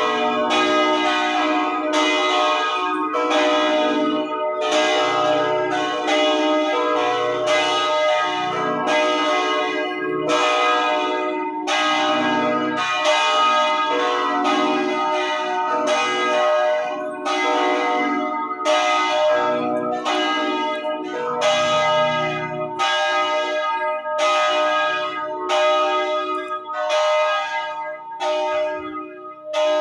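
Church bells ringing, struck in a steady succession about once a second, each strike's tones ringing on and overlapping the next.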